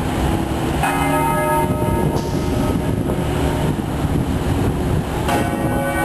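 A bell tolling slowly in remembrance: two strokes about four and a half seconds apart, each ringing on and slowly dying away, over a steady low rumble.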